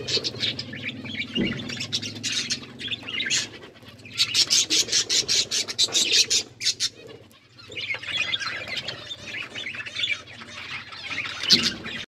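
Budgerigars chattering: fast, overlapping chirps and warbles, busiest in the middle, with a brief lull a little past halfway.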